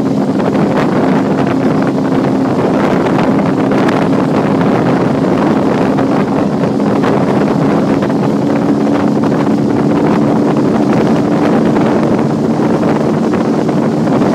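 Outboard motor of a coaching launch running at a steady cruise, a low even hum, under heavy wind noise buffeting the microphone.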